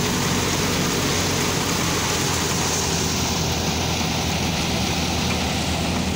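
Tractor-driven threshing machine running steadily: a constant engine hum under the dense, even noise of the threshing drum at work.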